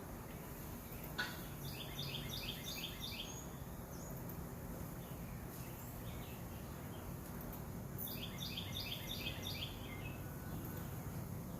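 A songbird singing two short phrases of quickly repeated high notes, one soon after the start and one about six seconds later, over steady low background noise. A single sharp click comes just before the first phrase.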